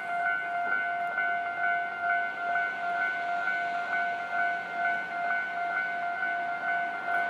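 Electronic warning bell of a Japanese railway level crossing ringing steadily, one tone repeating about twice a second.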